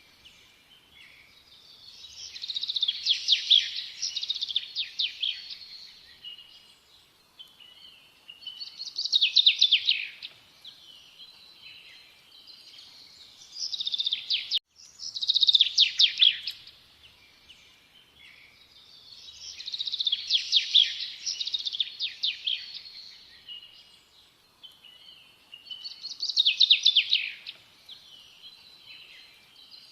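A bird singing in repeated trilled, chirping phrases every few seconds, with quiet gaps between; the same stretch of song starts over about halfway through, as from a looped nature recording.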